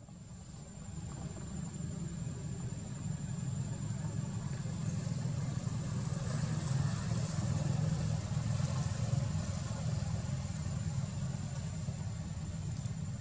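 A steady low engine rumble, like a motor idling, that swells over the first couple of seconds and then holds, with a thin steady high whine above it.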